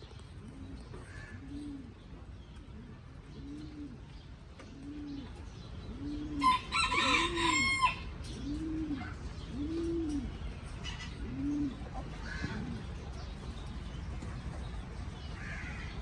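A pigeon cooing, a steady series of low coos that rise and fall, about one a second. A rooster crows once, loudly, about six and a half seconds in.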